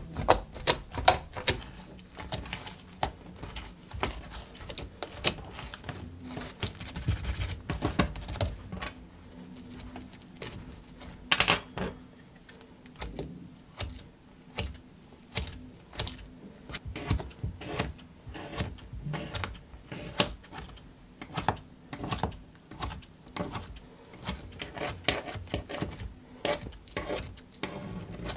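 Glitter slime being pressed by fingers and poked with a pointed tool, giving an irregular run of sharp sticky clicks and pops, with one louder pop about eleven seconds in.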